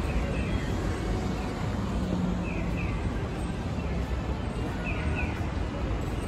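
Steady city-street traffic rumble. Over it comes a pair of short falling bird-like chirps about every two and a half seconds, the electronic 'piyo-piyo' signal of a pedestrian crossing.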